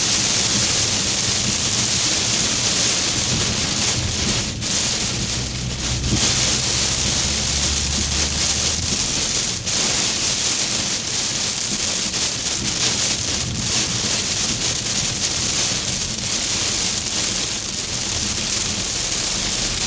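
Heavy rain pelting a car's roof and windshield, heard from inside the moving car: a steady dense hiss over a low rumble from the car and tyres on the wet highway.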